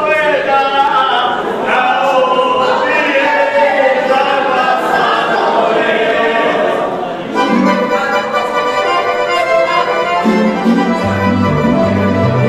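A folk ensemble singing a Croatian folk song in chorus. About seven seconds in, the singing stops and an instrumental passage with a steady low bass line takes over.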